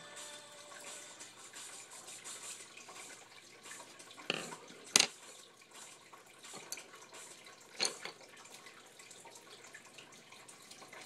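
A small piece of paper being handled and folded on a wooden tabletop: a faint rustle with four sharp taps, the loudest about five seconds in.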